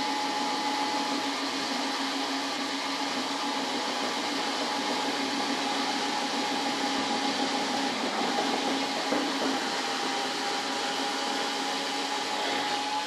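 Small cordless screw-gun drill running at a steady, slow speed while boring a hole through the model jet's composite fuselage: an even motor hum with a constant whine.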